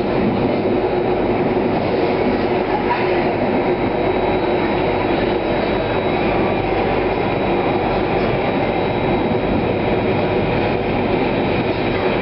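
SMRT Circle Line C830 metro train running at speed, a steady rumble of wheels on rail heard from inside the car.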